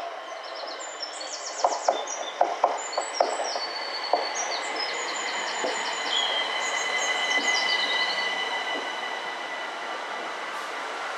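Southeastern Class 375 Electrostar electric multiple unit running slowly alongside the platform. Its wheels click sharply over rail joints several times in the first few seconds, under a steady high whine.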